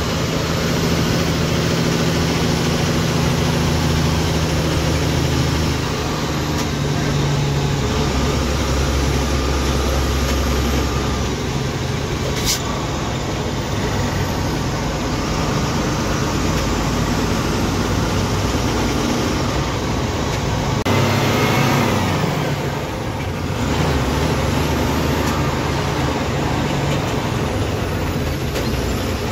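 MSRTC Shivshahi bus running, its engine a steady low drone that shifts in pitch, with a sharp click near the middle and the engine note falling away about three-quarters of the way through.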